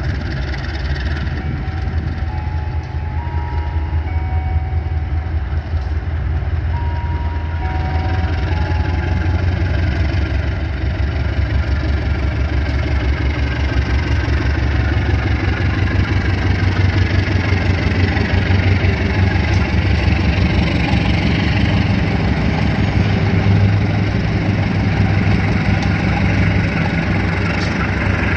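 Vintage locomotive's engine running with a heavy low rumble that grows louder through the second half, a whine above it rising in pitch. A few short, faint tones sound in the first several seconds.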